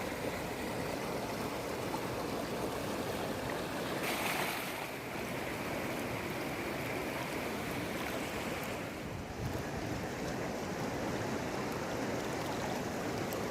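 Fast river water rushing over and between large boulders below the dam's gates: a steady, forceful rush, swelling briefly about four seconds in.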